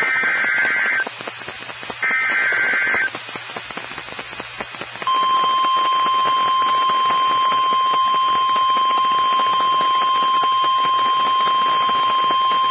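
NOAA Weather Radio emergency alert signal. Two one-second bursts of warbling digital SAME header data come about two seconds apart, then about five seconds in the steady 1050 Hz warning alarm tone begins and holds. Together they mark the start of a severe thunderstorm warning broadcast.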